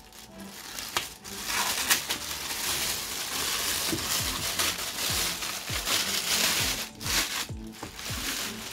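Thin plastic bag crinkling and rustling as it is pulled and peeled off a boxed speaker, with scattered small crackles; the rustling is busiest from about one second to seven seconds in.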